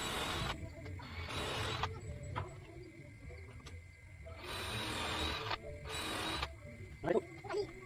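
Strokes of a hand tool working wood, such as sawing or planing boat timber, each half a second to a second long with gaps between them, and a short squeak-like sound near the end.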